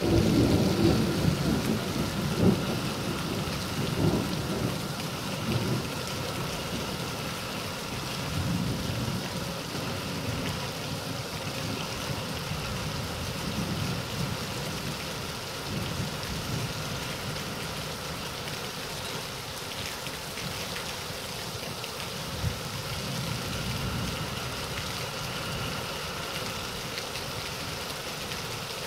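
Thunderstorm: thunder rumbling low and rolling through the first few seconds, then dying away under steady rain.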